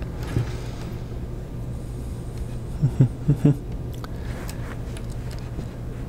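Steady low hum of room background, with faint rustles and light clicks of wires and small plastic plug connectors being handled. A few brief low voice-like sounds come about three seconds in.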